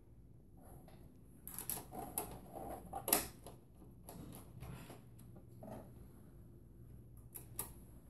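Small metal clicks and scrapes of a screw and screwdriver against the steel back panel of a computer case as the power supply's mounting screws are set in. A cluster of clicks builds to the loudest sharp click about three seconds in, with scattered ticks after and two quick clicks near the end.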